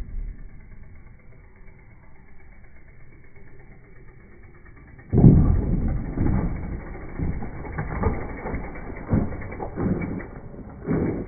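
Mountain bike hitting the dirt with a loud thud about five seconds in as it lands off a wooden ramp, then rattling and clattering as it rolls over the dirt trail, with chain and freewheel ticking and tyres crunching.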